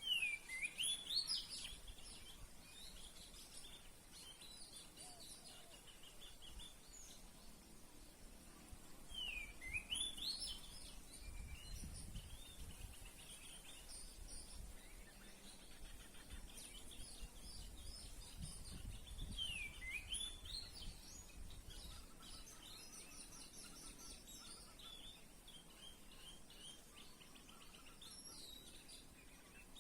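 Songbirds chirping and whistling, with a louder sweeping call phrase about every ten seconds, over a faint steady high hiss.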